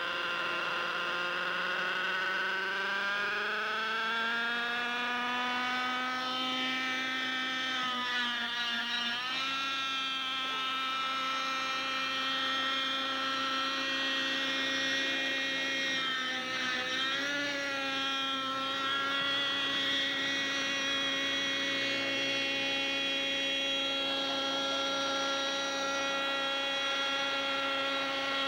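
Radio-controlled model airplane engine running in flight. Its pitch climbs over the first few seconds, swoops down and back up about nine and again about seventeen seconds in as the plane passes and changes throttle, then holds steady.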